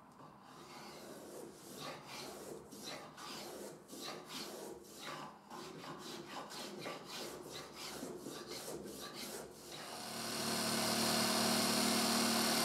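A small hand plane pushed along a thin wooden strip in quick, repeated shaving strokes, about three a second. About ten seconds in, an electric hand planer mounted upside down in a stand starts up and runs with a steady loud hiss.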